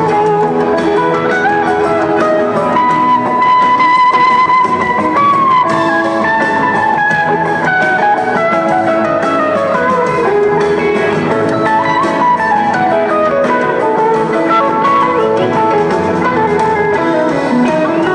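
Live rock band playing, heard from the audience: an electric guitar plays a lead line of held, bent notes and descending runs over strummed guitar, bass and drums.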